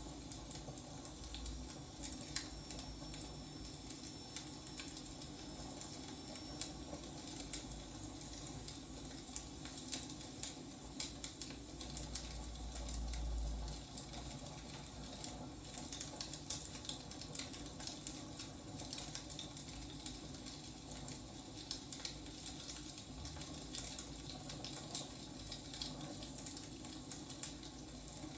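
Wood fire burning, crackling with irregular sharp pops over a soft steady hiss. A low rumble swells briefly about halfway through.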